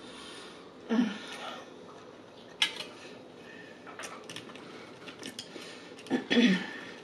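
Close-miked eating of fried chicken: chewing and mouth sounds, a sharp click a little under three seconds in, and a fork knocking and scraping in a side cup near the end.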